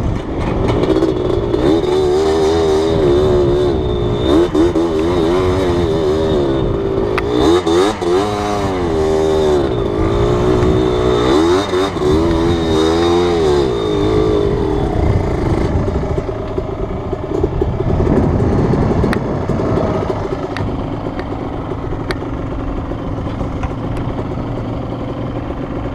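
Yamaha Blaster ATV's 195 cc two-stroke single-cylinder engine revving up and down under riding, then running more evenly and a little quieter for roughly the last ten seconds.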